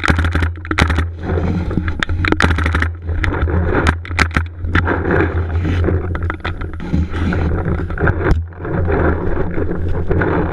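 Paintball markers firing in quick strings of sharp shots, densest in a rapid burst about two to three seconds in, with single shots scattered after. Under them run a steady low hum and the rubbing and handling noise of gear pressed against inflatable bunkers.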